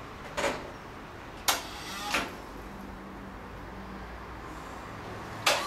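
Sharp knocks and clacks, four in all, three in the first couple of seconds and one near the end, from an electric forklift working a loaded pallet, over a low steady background.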